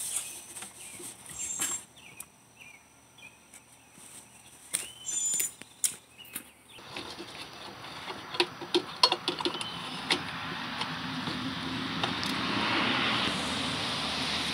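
Scattered plastic clicks and knocks as the blow tube of a Stihl BG 86 leaf blower is handled and worked loose, with a few short chirps in the first half. From about halfway in, a steady rushing background noise swells and stays up.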